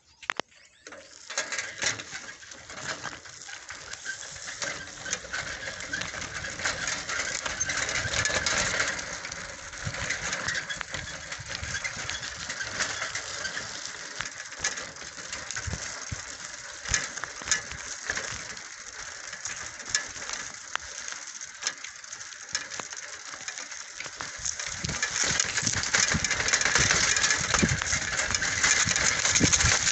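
Bicycle ridden over a rough dry dirt track: tyres crunching on the soil, the frame and fittings rattling in quick clicks over bumps, and dry grass brushing past. It gets louder over the last few seconds.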